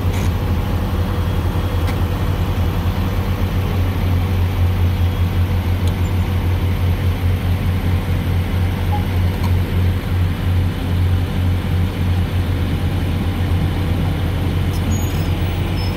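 LiuGong crawler excavator's diesel engine running steadily, a low drone with no change in pace as the machine works its arm.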